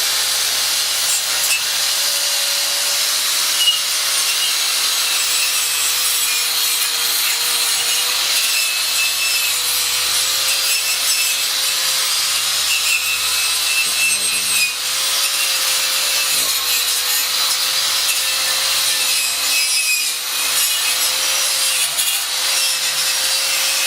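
Stick arc welding: a steady, crackling hiss that keeps going without a break, over a faint wavering hum.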